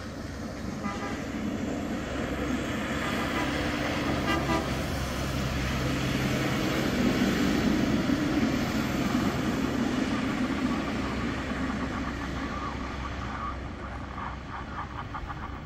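Diesel engine of a small on-track railroad maintenance machine running as it rolls past on the rails, growing louder to a peak about halfway through and then fading.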